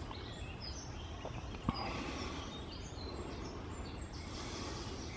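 Woodland ambience: scattered short, high bird chirps over a steady low rumble, with one sharp click a little under halfway through.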